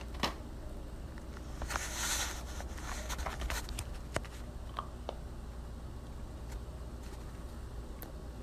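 Faint sounds of taking a chocolate-covered marshmallow cookie from its plastic tray and biting it: a short crinkly rustle about two seconds in and a few scattered soft clicks, over a steady low room hum.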